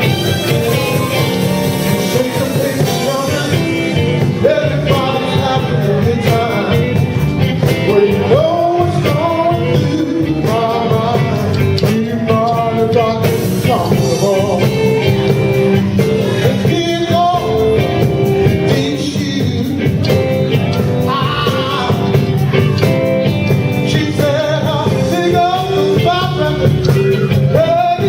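Live band playing a blues-rock song with a singer's vocals over guitar, keyboards and a steady bass and drum groove.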